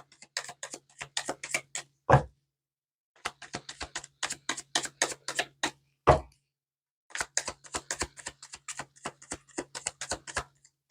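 Tarot cards being shuffled by hand: runs of rapid clicks, each run ended by a single heavier thump, three times.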